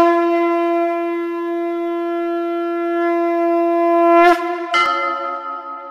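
Conch shell (shankh) blown in one long, steady note, which bends up slightly as it breaks off after about four seconds. Then a bell is struck and rings out, dying away.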